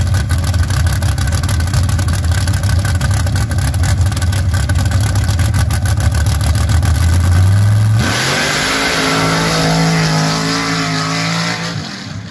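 Paddle-tired Jeep sand-drag buggy's engine idling loudly at the line with a rapid, even pulse, then a change about eight seconds in to full-throttle acceleration, the revs climbing in steps and fading toward the end as the buggy runs away down the sand track.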